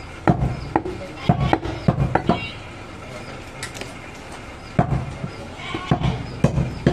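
Heavy butcher's knife chopping goat meat on a round wooden log block: sharp, uneven chops, about six in the first two and a half seconds, a pause, then a few more later on.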